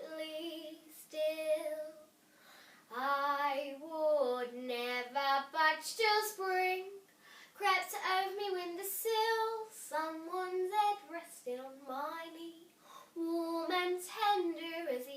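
A young girl singing unaccompanied, in short sung phrases separated by brief pauses.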